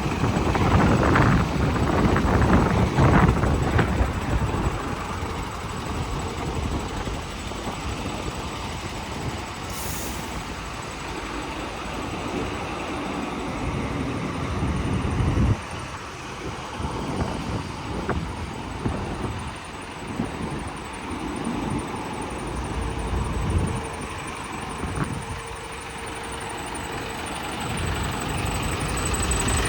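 Renault D-series truck's diesel engine running at idle, under an uneven low rumble that is loudest in the first few seconds and drops abruptly about halfway through.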